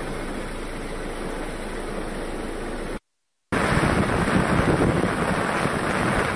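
Heavy rain pouring down in a steady hiss. It cuts out for a moment about three seconds in, then comes back louder, with wind buffeting the microphone.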